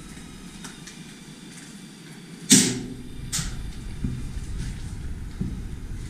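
A loud sharp bang about two and a half seconds in, then a fainter sharp knock under a second later, over low handling noise.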